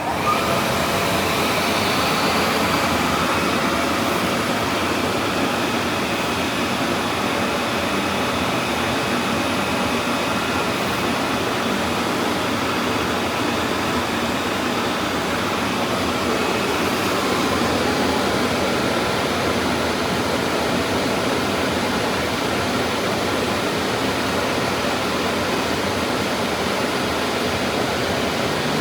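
CNC vibrating knife cutting machine running a job cutting KT foam board: a loud, steady rushing machine noise that comes up to full level right at the start and then holds even.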